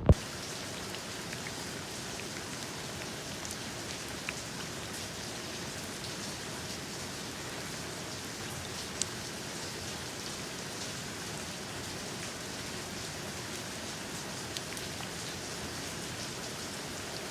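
Steady rain falling, an even hiss with a few louder single drops ticking now and then, the clearest about halfway through.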